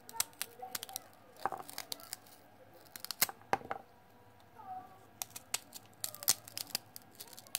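Kitchen knife cutting celery stalk into pieces, with irregular crisp clicks and snaps as the blade goes through the stalk.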